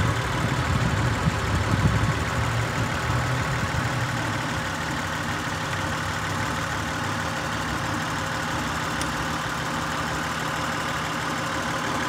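A 2003 Acura TL's 3.2-litre V6 idling steadily, heard from the open engine bay. It is running with cylinder 1 dead, the cause of its multiple-cylinder misfire codes.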